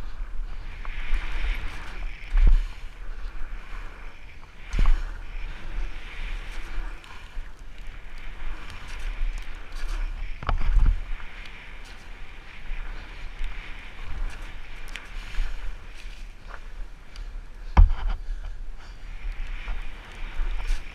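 Fat bike riding fast down a wet dirt trail: a steady rush of wind on the camera microphone and fat tyres rolling over wet dirt, broken by a few sharp knocks and clatters as the bike hits bumps and landings, the loudest near the end.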